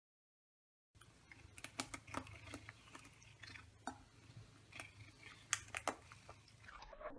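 Cat biting and chewing on the bristles of a plastic paddle hairbrush: irregular sharp clicks and crunches, starting about a second in.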